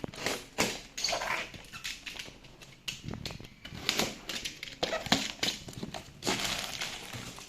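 Cardboard box and packaging being handled and opened by hand: irregular rustles, scrapes and knocks.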